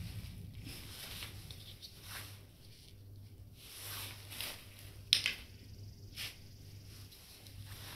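Plastic toy building bricks being handled and set down on sand: a few scattered clicks and light scrapes, the sharpest about five seconds in, over a low steady hum.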